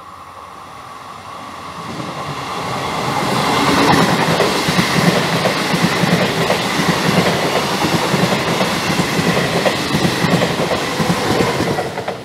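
Passenger train passing close on the nearest track. It grows louder over the first few seconds as it approaches, then gives a steady rumble with the wheels clattering repeatedly over the rail joints as the coaches roll by.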